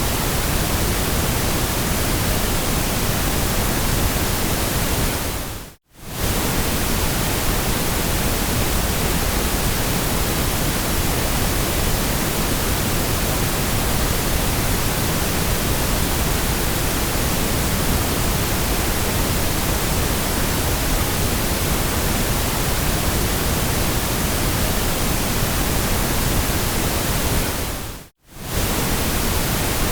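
Steady white noise, an even hiss across all pitches. It fades briefly to near silence and straight back in twice, about six seconds in and again near the end.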